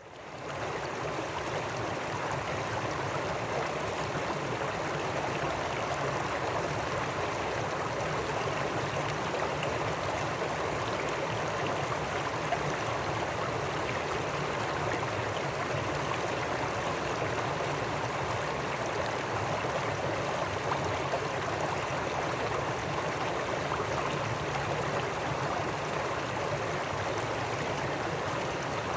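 Small stream flowing down a series of stepped drops: a steady rush of falling, splashing water that fades in over the first second.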